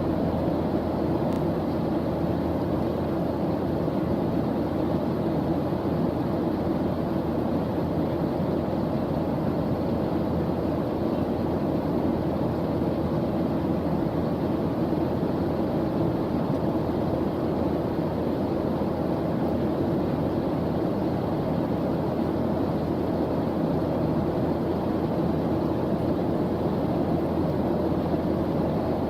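Steady white-noise track, weighted low so it sounds like a deep, even rushing hiss, unchanging throughout.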